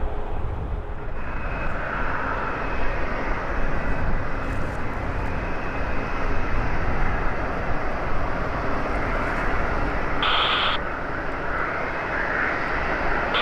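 Airbus A350-941's Rolls-Royce Trent XWB jet engines on the landing approach: a steady, dense jet rumble with a faint high whine, growing louder towards the middle. A brief burst of radio noise cuts in about ten seconds in.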